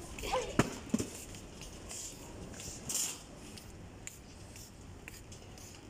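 Supermarket background noise: two sharp clicks about half a second and a second in, short rustling noises around two and three seconds in, and a brief faint voice at the start.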